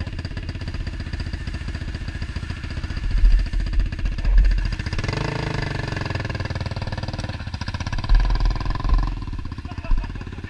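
Quad (ATV) engines idling close by with an even firing rhythm. About halfway through, the engine note rises and runs faster for a few seconds before settling back.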